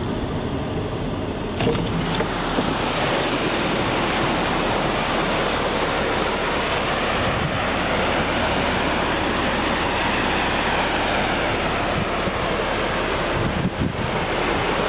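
Ocean surf washing onto a sandy beach with wind on the microphone, an even, steady rush that grows louder about one and a half seconds in. A steady high hiss runs alongside it.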